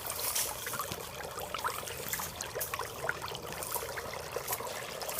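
Water trickling steadily with scattered small drips in a small electric waterfall fountain.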